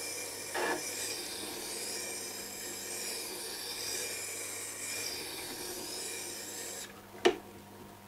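Steel turning gouge in a jig being ground on a Tormek T-8's water-cooled extra-fine diamond wheel: a steady, high-pitched scraping hiss with a light knock about half a second in. The grinding stops about seven seconds in, followed by a single sharp click.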